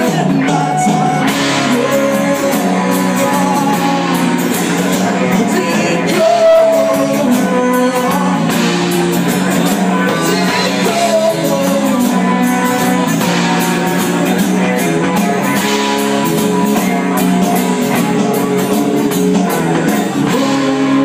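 Live rock band playing a song: strummed acoustic guitar, electric guitar and drums, with a man singing.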